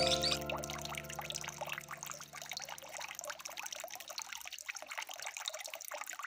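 Running water trickling and splashing steadily. Soft sustained music underneath it fades out over the first couple of seconds.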